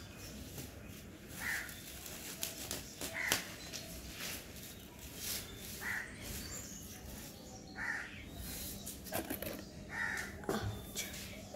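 A crow cawing, single short caws repeated about every two seconds, about five in all. Light rustles and crackles of a potted plant and its coir support stick being handled are heard under the caws.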